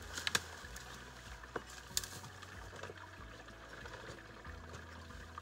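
Footsteps and rustling through dry cattails and dead brush, with a few sharp snaps and cracks in the first two seconds.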